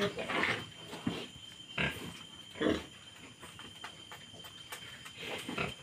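A sow and her newborn piglets grunting and squealing in short calls, four or five times.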